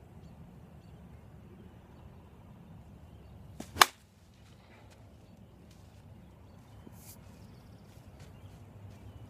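Avarice G2 slowpitch softball bat hitting a softball off a batting tee: a single sharp crack about four seconds in.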